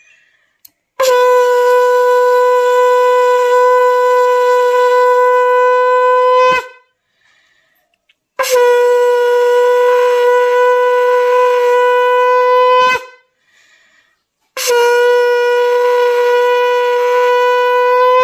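Conch shell (shankha) blown in three long, steady blasts, each held for several seconds at one unchanging pitch, with short breaks between them; this is the conch sounded during a Hindu blessing ritual.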